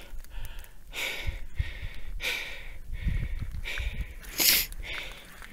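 A hiker breathing hard from the effort of a steep, high-altitude climb, a heavy breath about every second, with one louder, sharper breath about four and a half seconds in.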